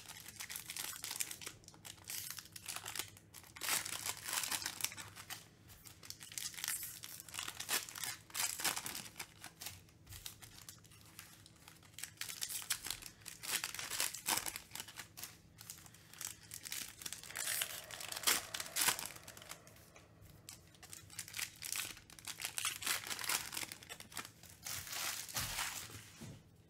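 Foil wrapper of a baseball card pack being torn open and crinkled, in repeated bursts of crackling rustle with short pauses between, and cards being handled.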